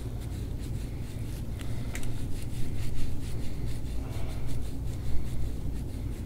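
Gua sha tool scraping over the skin of the neck in short rasping strokes, several a second, louder from about two seconds in, over a steady low hum.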